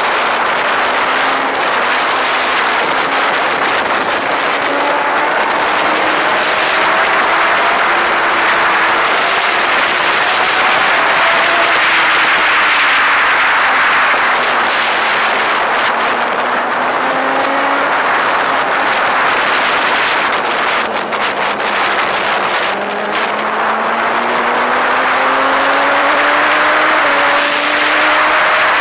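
Heavy wind rush on the microphone over a running vehicle engine whose pitch slowly rises and falls with speed, climbing steadily over the last few seconds.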